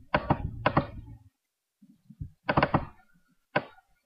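Computer mouse buttons clicking: a pair of quick clicks near the start, a close cluster about two and a half seconds in, and a single click near the end, as folders are opened in a file dialog.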